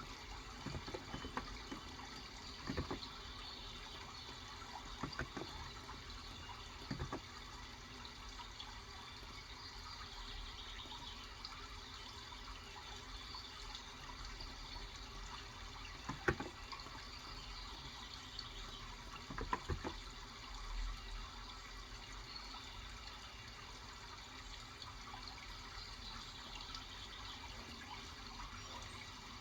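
Steady running water, with scattered, irregular keystrokes on a Cox Endeavor electrostatic-capacitive (contactless) 35 g keyboard, busier in the first few seconds. Faint birdsong chirps now and then.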